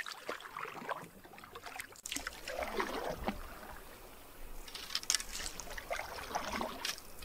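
Canoe paddle strokes: the blade dipping and pulling through the water, with splashing and water dripping off the paddle.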